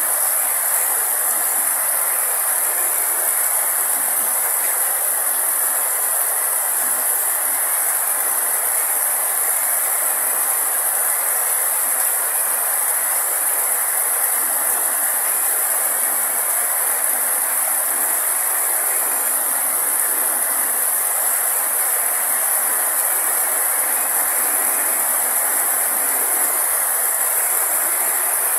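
Heavy rain falling steadily on grass and leafy vegetation, an even, unbroken hiss.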